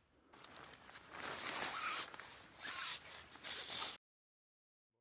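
Rustling, scraping noise in three swells over about three seconds, then cut off abruptly to dead silence.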